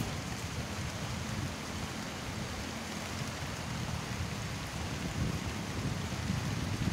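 Steady rain falling on the reservoir's water, an even hiss with a low rumble underneath.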